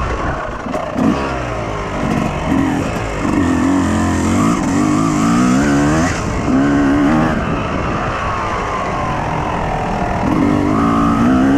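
Yamaha YZ250 two-stroke motocross engine being ridden hard, its pitch repeatedly climbing and dropping back as the rider accelerates and backs off.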